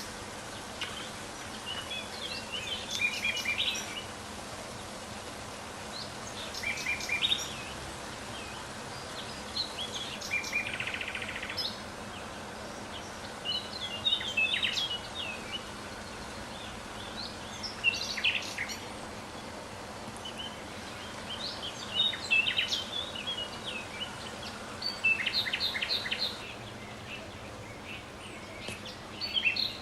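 A songbird singing short, high chirping phrases, repeated about every four seconds over a steady background hiss, with a brief buzzy call about ten seconds in.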